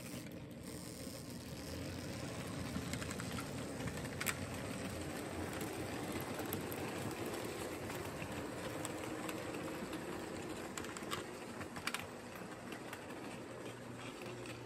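Märklin HO model of a DB V60 diesel locomotive pulling away from a standstill with a string of hopper wagons. Its electric motor runs and the wheels rattle along the track, with scattered sharp clicks. The sound eases slightly as the train moves off.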